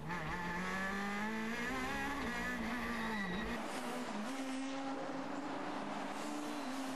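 Rally hatchback race car engine revving hard, its pitch climbing and dropping with each gear change and lift. It is heard with a deep in-cabin rumble for the first three and a half seconds, then from trackside as a steadier engine note.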